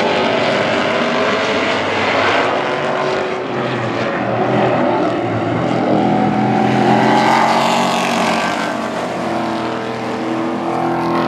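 Several Supertruck race trucks' engines running at racing speed on an oval track, overlapping engine notes rising and falling as the trucks pass by.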